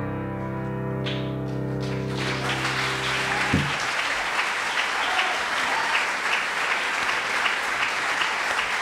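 The last chord of a song rings out and stops abruptly about three and a half seconds in. An audience starts applauding about two seconds in and keeps clapping, with a few cheers on top.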